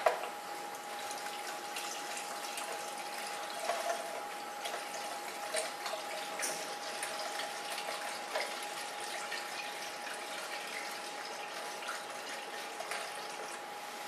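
50-50 coolant mix pouring steadily from a plastic jug into a car's coolant expansion tank, with a sharp knock at the very start.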